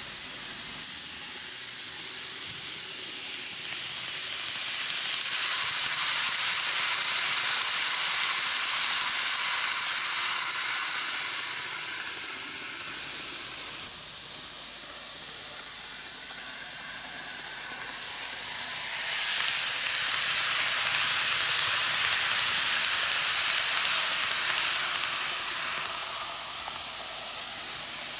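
Greenmax Keikyu New 1000 series N-gauge model train running on TOMIX canted track: a steady hissing run of wheels on rails and motor, swelling twice as the train comes round the loop near the microphone.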